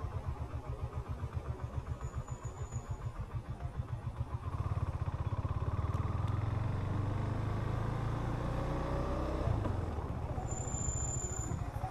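Motorcycle engine heard from the rider's seat, chugging at low revs for the first few seconds, then picking up and rising steadily as the bike accelerates.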